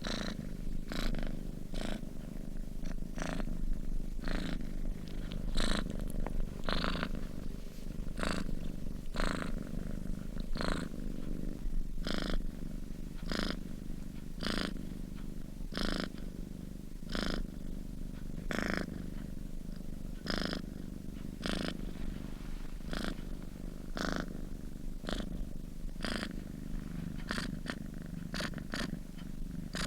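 A sleeping domestic cat purring steadily: a continuous low rumble with a breathy rasp on each breath, about once every second or so, in an even rhythm.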